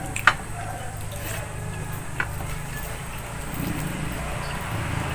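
Table sounds of a meal eaten by hand: a few sharp clicks of dishes, the loudest about a quarter second in and another about two seconds in, over a steady low hum.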